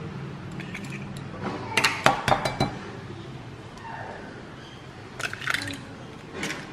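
Eggs being cracked on a glass measuring jug and dropped in: short sharp taps of eggshell on glass in quick clusters, about two seconds in and again around five seconds in, with a soft wet drop of egg into the jug.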